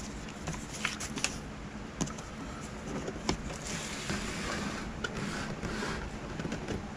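Handling noise: scattered light clicks and knocks, with a stretch of rustling in the middle.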